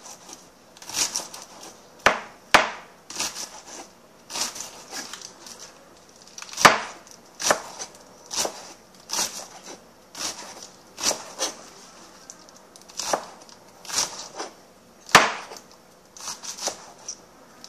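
Chef's knife chopping crisp salad leaves on a plastic cutting board: irregular cutting strokes, about one or two a second, each ending in a sharp knock of the blade on the board, a few much louder than the rest.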